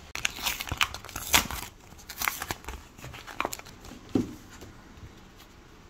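Paper and plastic packaging of a new bank debit card crinkling and rustling as it is unfolded and handled, in irregular sharp crackles that thin out after about four seconds.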